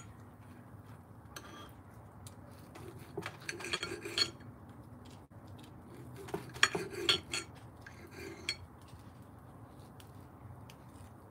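Steel knife and fork clinking and scraping against a plate while cutting through a grilled pork chop, in short spells with pauses between.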